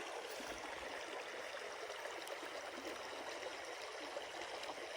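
Creek water running, a steady even rush with no breaks.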